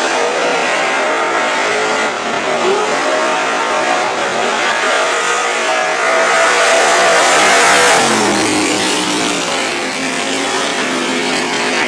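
Chevrolet Cavalier Z24 drag car's engine running hard as the car accelerates down the strip. It grows loudest as the car passes close, about eight seconds in, then drops in pitch as it pulls away.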